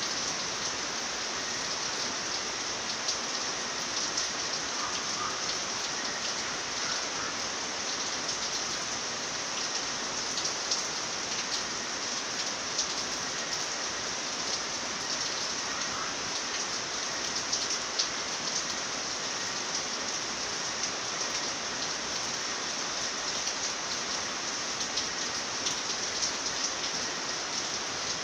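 Steady rain, an even hiss dotted with many small, sharp drop taps.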